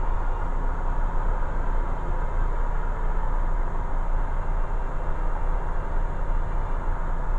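Light aircraft's piston engine and propeller droning steadily in flight, heard from inside the cockpit.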